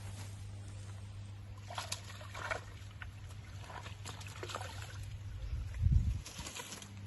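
Light splashing and trickling of water with a few soft clicks, over a steady low hum. A low thump about six seconds in is the loudest sound.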